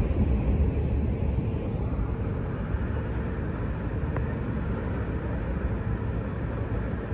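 US Elevator traction elevator cab travelling in its shaft: a steady low rumble with a faint hum for a few seconds in the middle.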